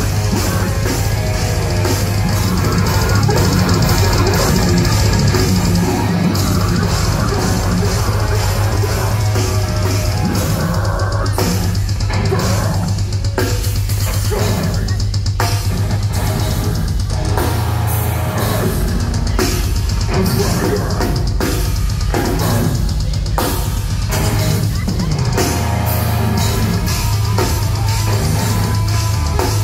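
Live deathcore band playing loud: pounding drum kit with bass drum and cymbals, distorted electric guitar and vocals. From about eleven seconds in, the music breaks into short, spaced hits with brief gaps between them.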